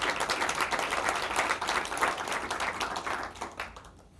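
Audience applauding, many hands clapping, dying away near the end.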